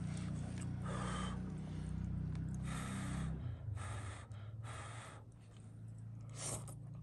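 A person eating: about five short, noisy breaths while chewing mouthfuls of food, over a low steady hum that fades out about halfway through.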